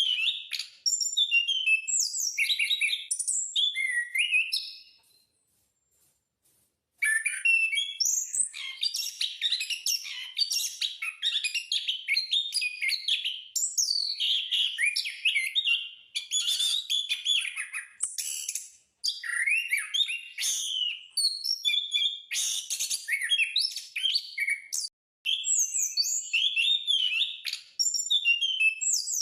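An anis (punglor) thrush singing vigorously: a fast, continuous, varied run of high whistled and chirped phrases. The song breaks off for about two seconds around five seconds in, then resumes.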